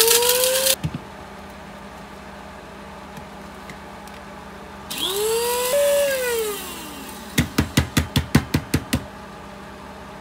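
Krups electric blade grinder grinding dried jalapeño peppers. It runs in a short pulse right at the start, then in a longer run about five seconds in, its motor whine rising as it spins up and falling as it winds down. Near the end comes a quick run of about ten sharp knocks, about six a second.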